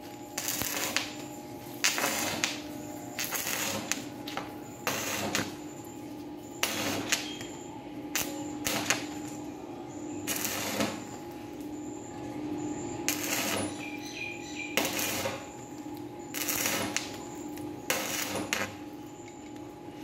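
Stick (arc) welding on a steel door: the electrode crackles and sizzles in about a dozen short bursts, each lasting up to about a second, as the arc is struck and broken again, over a steady low hum.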